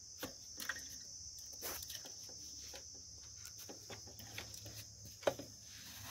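Watermelon chunks dropped by hand from a steel plate into a plastic blender jar of milk: scattered soft taps and plops, with one sharper knock about five seconds in. A steady high cricket chirring runs underneath.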